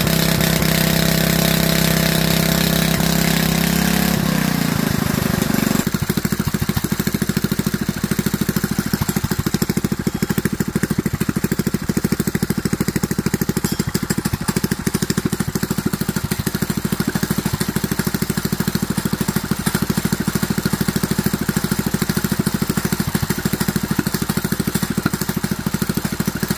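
DuroMax 212cc single-cylinder engine running at a higher speed, then throttling down over a couple of seconds about four seconds in and settling into a steady idle.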